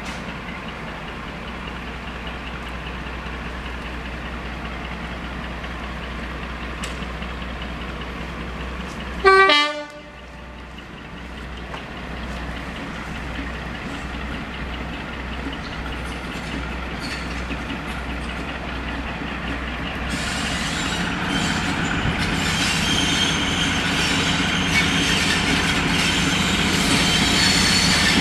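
A Warship-class diesel-hydraulic locomotive runs with a steady low drone, then sounds a short two-tone horn blast about nine seconds in. Its engine noise then grows steadily louder as it sets off and approaches, with the rumble filling out from about twenty seconds.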